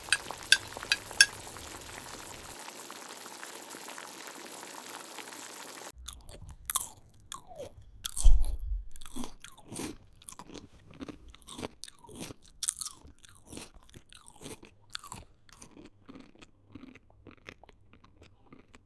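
A pan of food sizzling steadily for about six seconds, which cuts off abruptly. Irregular crunching and chewing follow, loudest about two seconds after the change and thinning out toward the end.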